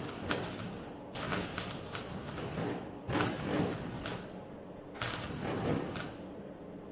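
MIG welder crackling in short bursts of about a second each, four of them with brief pauses between, as a steel repair panel for the suspension top is welded in.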